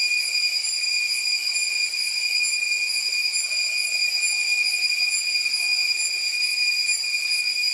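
Cicadas droning in the trees: one steady, unchanging high-pitched buzz.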